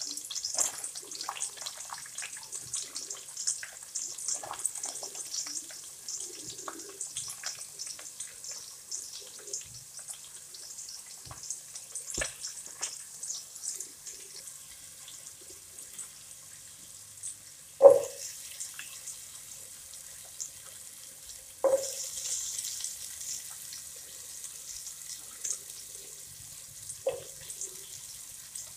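Sliced onions sizzling and crackling in hot oil in a metal pan, a steady high hiss. Three sharp metallic clanks of cookware ring briefly over it, the loudest about two-thirds of the way through.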